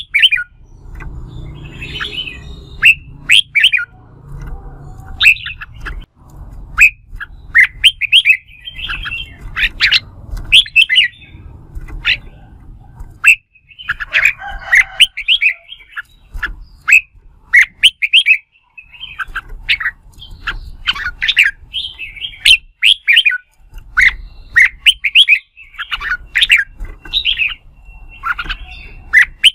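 Red-whiskered bulbul singing its competitive fighting song: rapid bursts of short, sharp whistled notes in repeated phrases with brief pauses between them, over an on-and-off low rumble.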